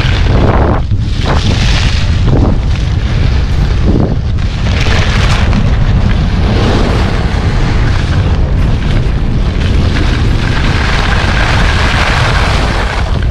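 Strong wind buffeting the microphone: a loud, steady rumble with a rushing hiss over it.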